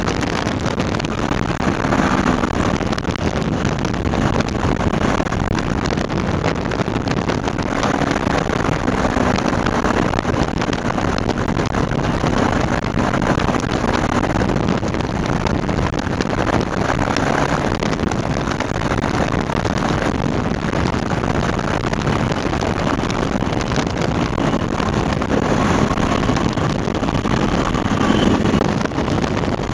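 Microlight trike in flight: its engine running steadily under a constant rush of wind over the microphone.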